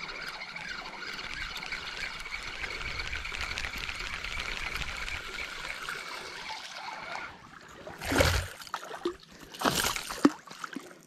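Topwater lure being reeled in across calm lake water, a steady churning splash for about seven seconds. Near the end come two louder splashes as the lure reaches the rocky shore and is lifted out.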